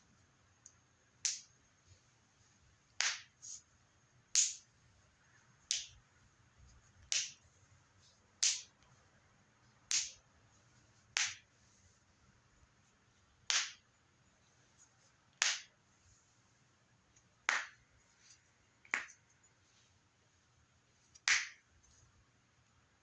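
Joints being cracked one at a time: about thirteen sharp, short pops, one every second or two, with a few fainter ones in between.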